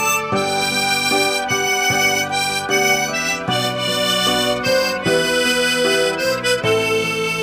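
Tombo tremolo harmonica in the key of G playing a slow melody, with several reeds sounding together in chords as the notes change.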